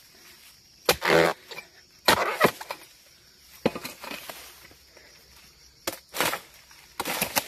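A hand-held palm harvesting blade hacking at the stalk of an oil palm fruit bunch: a series of short, rough strikes and scrapes, unevenly spaced, some coming in close pairs.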